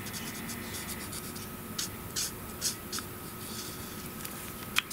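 Marker nib stroking on cardstock as the puppy's ears are coloured and blended: a few short, soft strokes, mostly from about two seconds in.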